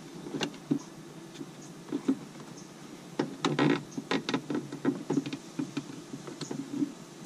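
Fingers working a plastic wiring connector off a headlight bulb: a string of short plastic clicks and knocks, busiest around the middle.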